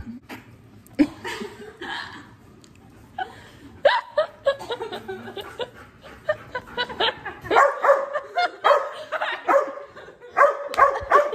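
Dog barking in quick runs of short barks, getting busier and louder about halfway through.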